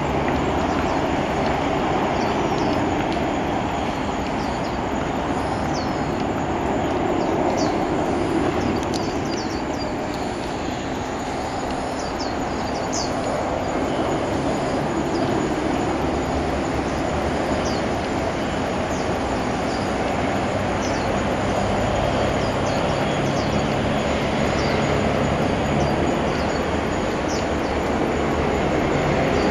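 Steady outdoor background rumble with a few faint, short high chirps.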